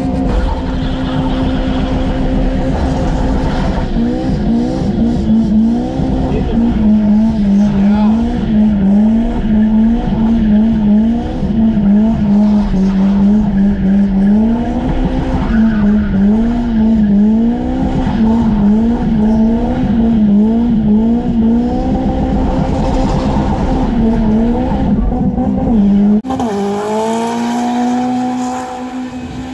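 A rear-wheel-drive car doing skids: the engine is held at high revs with the throttle worked up and down, so the note keeps wavering, while the rear tyres spin. It is heard from inside the cabin until, near the end, the sound changes to an outside view, where the engine note steadies and holds high.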